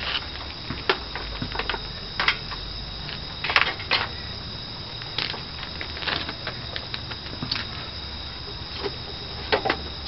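Scattered light clicks and knocks of an extension cord and its plug being handled and untangled, over a steady background hiss; the vacuum motor is not yet running.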